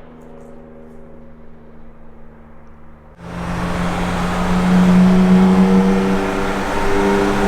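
BMW M4 twin-turbo straight-six through an Fi valved exhaust, running at a low steady speed, then about three seconds in the engine note jumps suddenly much louder and rougher as the car accelerates, holding a strong steady drone to the end.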